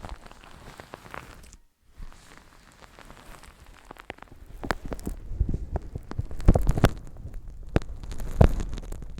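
Fingers rubbing and pressing on a microphone's ears with a milky liquid, giving dense wet crackling and rubbing. It grows louder with heavier thumps from about halfway through.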